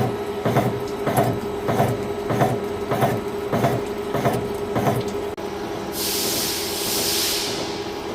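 Fellows gear shaper cutting a clutch coupling, its cutter stroking at about one and a half strokes a second over a steady machine hum. After about five seconds the strokes stop and a hiss follows for over a second.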